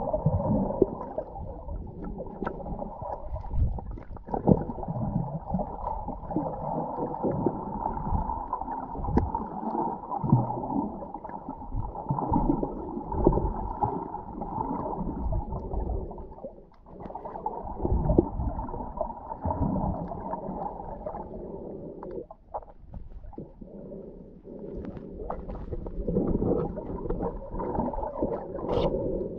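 Underwater sound picked up by a submerged camera: a muffled, shifting rumble and gurgle of moving water, with a few scattered clicks.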